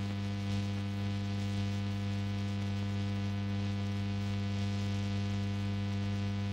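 Steady, unchanging low electrical hum of the mains type, with no other sound over it.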